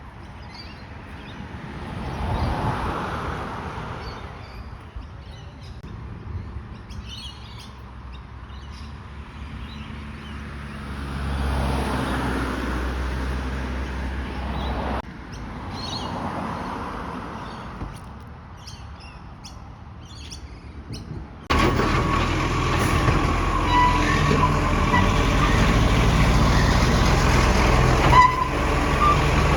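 Vehicles passing, each swelling and fading, with birds chirping; about two-thirds of the way through it cuts suddenly to a garbage truck's engine running loud and close, with a steady whine over it.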